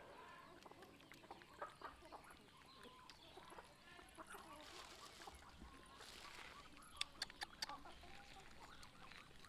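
Near silence, with faint animal calls in the background and a quick run of small sharp clicks about seven seconds in.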